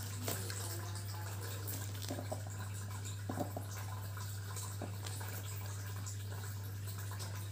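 Steady low hum, with a few small clicks and taps as a glass nail polish bottle is picked up, its cap unscrewed and the brush drawn out.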